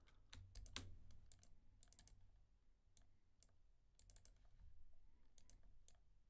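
Faint, irregular clicking of a computer mouse, in small clusters of two or three clicks, over a faint steady low hum.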